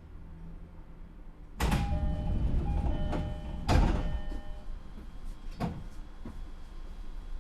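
Train passenger doors sliding shut at a station stop, over a few seconds of steady chime-like tones. A loud thump comes as the doors close, about halfway through.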